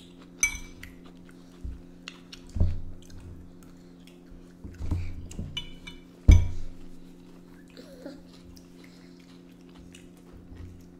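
Eating sounds: chewing, and forks knocking and scraping on a ceramic bowl and plate, with the sharpest knock about six seconds in and softer ones around two and a half and five seconds, over a steady low hum.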